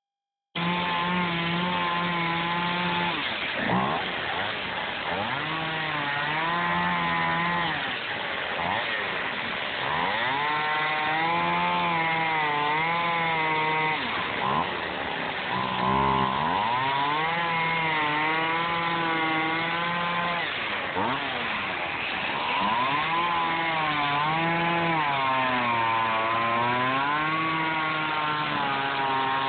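Two-stroke gas chainsaw running and cutting through a block of EPS foam, its engine pitch rising and falling again and again as the throttle is worked through the cut.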